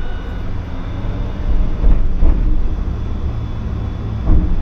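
Hiroshima Electric Railway streetcar running along its street track, heard from inside the car: a steady low rumble with a few short knocks about two seconds in and again near the end.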